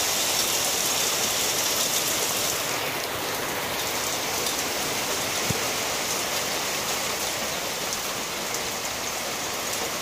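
Steady rain falling, with many small drop ticks.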